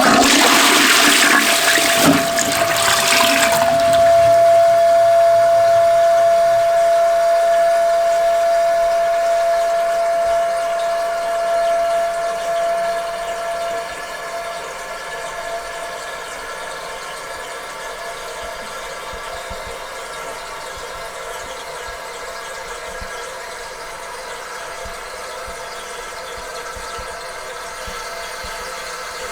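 Toilet flushing: a loud rush of water for about three and a half seconds, then the tank refilling with a steady hiss and a held whistling tone that stops about halfway through, leaving a quieter steady hiss.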